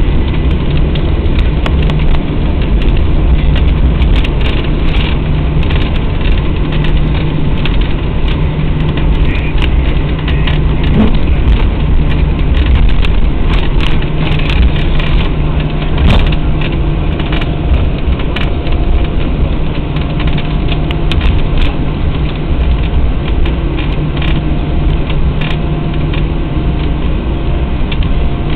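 Inside the cabin of an Airbus A321-100 rolling on the ground after landing: a steady jet engine hum over a deep rumble from the wheels on the pavement, with scattered knocks and rattles. A second steady hum tone comes in about halfway through.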